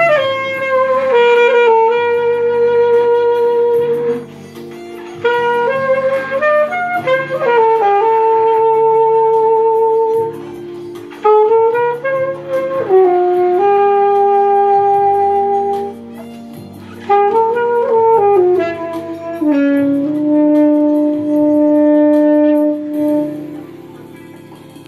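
Alto saxophone playing a slow, lyrical melody of long held notes joined by slides, in phrases with short breaks between them, over a softer backing track. The last long note is held and released, and the accompaniment fades out near the end.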